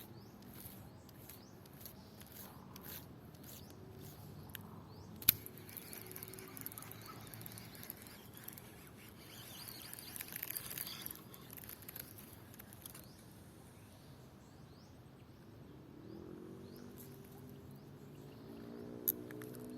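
Outdoor ambience with faint chirping of birds and insects, broken by two sharp clicks about five seconds in and near the end. A low pitched sound rises in over the last few seconds.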